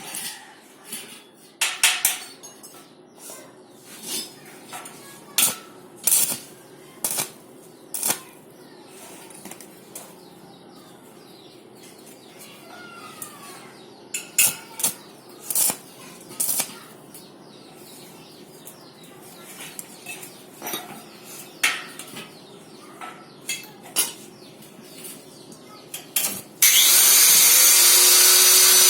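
Scattered metal knocks and clinks over a faint hum, then near the end a loud, steady crackling hiss starts suddenly: a welding arc being struck and held.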